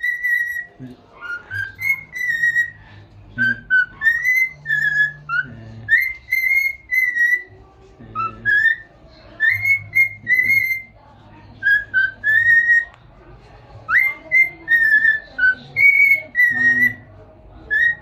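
Cockatiel whistling a tune: a long run of short, clear whistled notes, some rising and some falling, in phrases with brief pauses.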